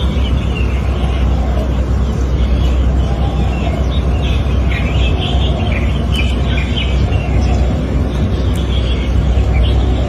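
Outdoor ambience: small birds chirping over a loud, steady low rumble.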